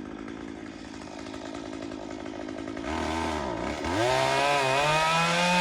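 Chainsaw running at a low idle, then dipping and revving up about three seconds in to a louder, steady high-pitched full-throttle run.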